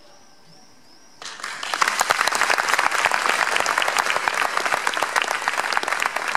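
Audience applause breaking out suddenly about a second in, just after the song's last note has died away, and keeping up steadily: many hands clapping at once.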